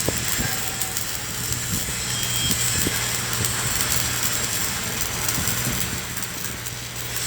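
Stick-welding arc hissing and crackling steadily, over a constant low machine hum.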